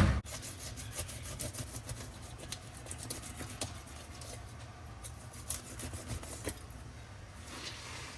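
A loud thump at the very start, then a knife scraping and cutting along a hybrid striped bass as it is cleaned: a run of short, fast rasping strokes.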